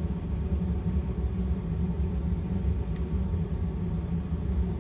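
Steady low background rumble, with a couple of faint light clicks.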